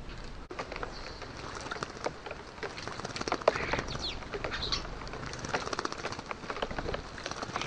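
Common starling bathing in a bird bath: repeated splashing and wing-fluttering in the shallow water, with a few short bird calls around the middle.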